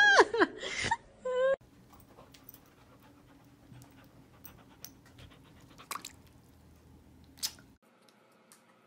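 A cat's drawn-out meows, sliding up and down in pitch, that break off after about a second and a half; then soft scattered clicks and taps.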